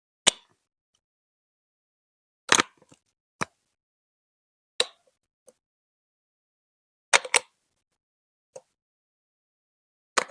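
Plastic Lego Duplo bricks being set down and pressed together, making sharp clacks every second or two, some in quick pairs or clusters.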